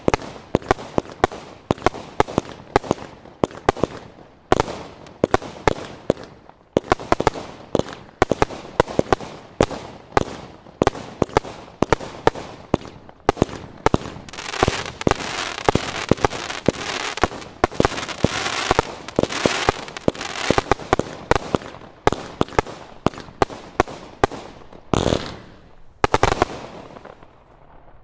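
Standard Fireworks Oblivion 120-shot single-ignition firework cake firing: a rapid string of shots, one tube after another. In the middle the shots run together into a busier, continuous rush, and the last few shots come near the end before it falls quiet.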